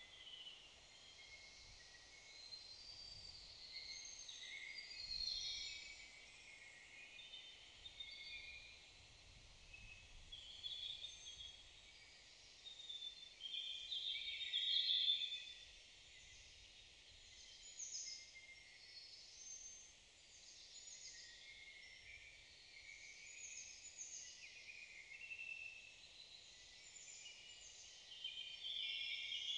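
Several songbirds singing at once: a busy, unbroken mix of short chirps and trills, loudest about halfway through.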